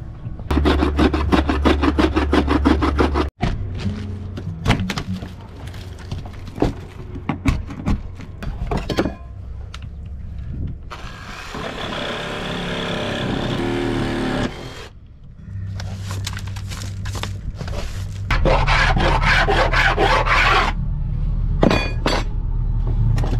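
Rotten wood being pried, cracked and scraped out of a wooden boat's helm structure, with many sharp knocks and crunches. A handheld power tool runs for about four seconds midway. Background blues music with a steady bass line plays throughout.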